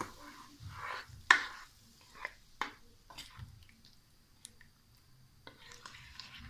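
Spoon knocking and scraping against a karahi of chicken curry in a watery gravy: a few sharp clinks, the loudest about a second in, then fainter ticks.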